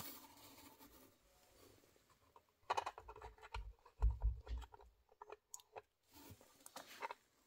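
Fingers pressing printed interior panels into place inside a small model building: scattered scrapes, taps and clicks of the panels against its walls, with a dull thump about four seconds in.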